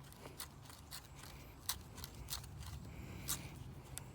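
Steel tip of a bushcraft knife being twisted into sycamore wood to bore a hole: irregular short scrapes and clicks as the blade shaves wood out of the hole, over a low steady rumble.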